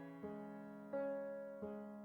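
Soft background piano music: slow chords struck about three times in two seconds, each fading away.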